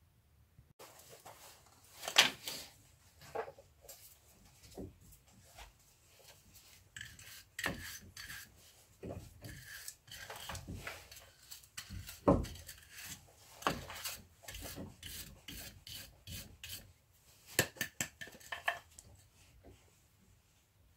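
Irregular scraping and rubbing as rust and grime are cleaned out of a steering knuckle's wheel-hub bore by hand, with a few sharp knocks in between.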